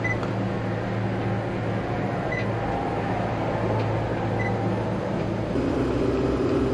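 Inboard engines of a 1999 Carver 504 motor yacht running steadily under way, a low drone with a steady hum. Three short, faint electronic beeps come through it, and the engine sound changes about a second before the end.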